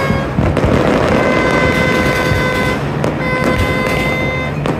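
Dense, continuous crackle and bangs of New Year fireworks and firecrackers going off across the city, with a sharp bang near the end. A horn sounds through it in long, steady blasts of about a second and a half, twice.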